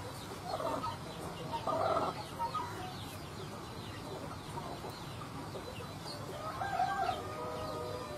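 Desi chickens clucking in short calls, then a rooster crowing in one long, slightly falling call near the end.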